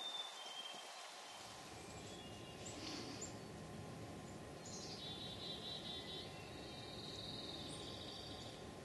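Songbirds singing in woodland: scattered short high chirps, then two high, fast trills back to back from about five seconds in, together lasting nearly four seconds. A low steady rumble runs under them from about a second in.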